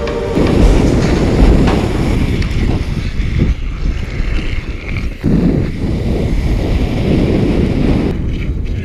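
Rushing wind buffeting the microphone of a camera riding fast with a downhill longboard, mixed with the hiss of urethane wheels rolling over wet asphalt.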